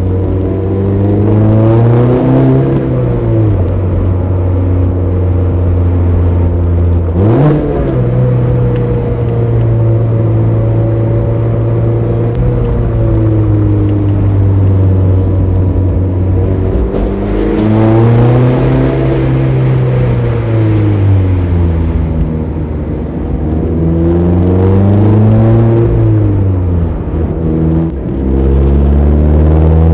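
Mazda ND Roadster's four-cylinder engine under way through a manual gearbox. Its pitch climbs and drops again several times as the car accelerates, eases off and changes gear. About seven seconds in there is a quick, sharp rev blip.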